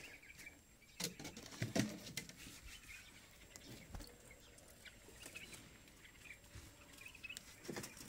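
Faint scattered taps and rustles, with a couple of heavier bumps between one and two seconds in, and faint short bird chirps here and there.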